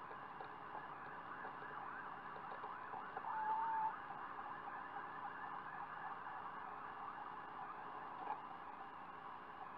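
A dense, steady outdoor night chorus of many small overlapping chirping calls, with one short whistled note a little over three seconds in.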